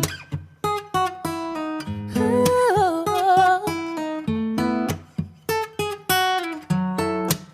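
Instrumental intro of a worship song: acoustic guitar picking and strumming a run of chords.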